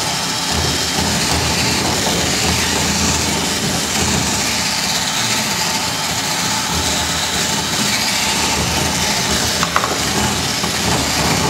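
Cordless drill running steadily with an auger bit, the bit worked up and down inside a lock mortice in timber, cutting and clearing out the waste wood.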